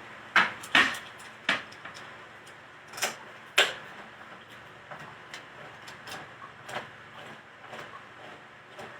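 Kitchen handling sounds: a string of sharp knocks and clicks as things are picked up and set down, loudest over the first four seconds, then lighter scattered taps.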